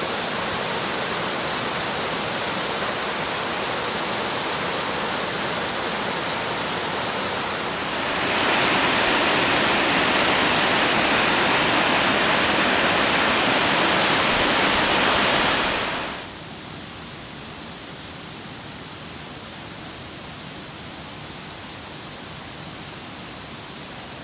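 Waterfall water rushing, a steady noise with no breaks. It gets abruptly louder and brighter about eight seconds in, then drops to a quieter level about sixteen seconds in.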